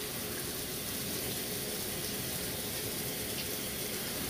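Water spraying steadily from a handheld shower head onto a dog's wet coat in a bathtub, an even hiss.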